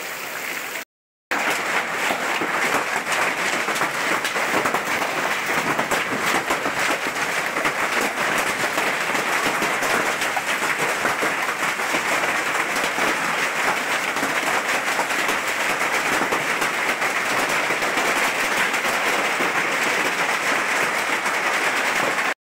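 Hailstorm with heavy rain: hailstones and rain striking the ground and hard surfaces in a dense, continuous crackle of small impacts. The sound drops out briefly about a second in.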